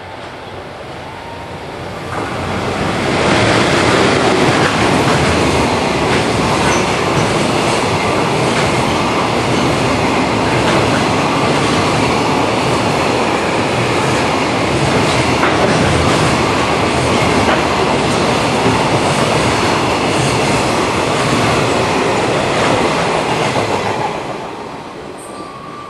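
Freight train passing through at speed: it swells in about two seconds in, then a long string of wagons goes by with wheels clicking over rail joints, and the sound dies away near the end.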